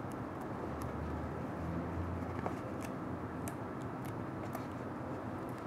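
Faint ticks and rustles of adhesive tape being handled and wrapped around a cardboard roller core, over a steady low hum.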